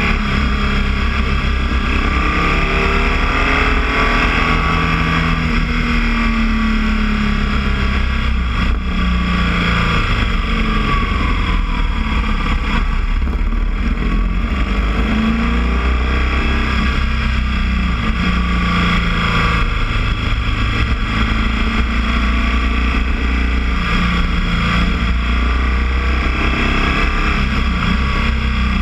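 Boxer motorcycle engine running under way, its note rising and falling with the throttle, over a steady rush of wind.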